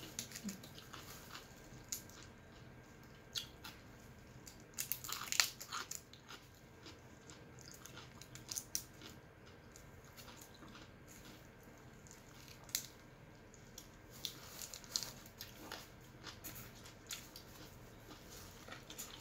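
Close-up eating sounds: scattered crunches, chewing and small clicks of fingers picking at shell-on shrimp and cucumber salad, with a brief cluster of crunches about five seconds in.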